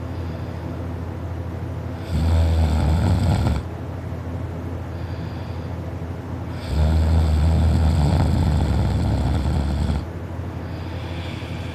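A person snoring in their sleep. Two loud, low-pitched snores about four and a half seconds apart, the second one longer, with quieter breathing between them.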